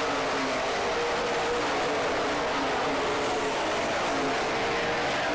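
Stock car engines running at racing speed around an oval track: a steady, loud drone from several cars at once, their engine notes rising and falling slightly as they pass.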